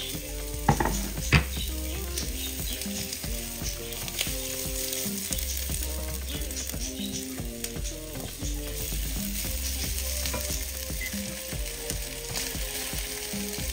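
Food frying in hot coconut oil in a pan: a steady sizzle with stirring, and two sharp clacks about a second in.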